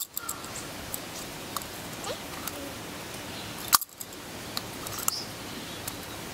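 Steady low background noise with a few small, sharp clicks scattered through it, the loudest about four seconds in.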